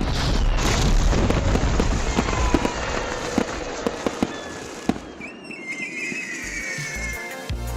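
Fireworks display: a dense, continuous rumble of shell bursts with many sharp crackling pops. A high whistling tone holds for about two seconds in the second half.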